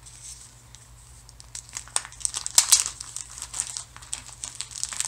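Packaging crinkling and crackling as comic books are worked out of their wrapping, in an uneven run of quick crackles that is loudest a little past halfway.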